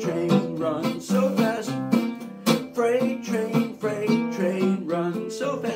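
Acoustic guitar played in the key of F, with a man singing a folk song over it.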